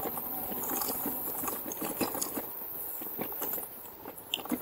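RadRover electric fat-tyre bike riding over a rough, dry dirt path: steady tyre noise broken by many irregular rattles and knocks as the bike goes over bumps.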